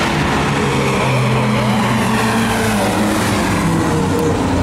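Stock cars racing around a speedway oval: several engines running hard at once, their pitch mostly steady with a few short rising revs as cars accelerate.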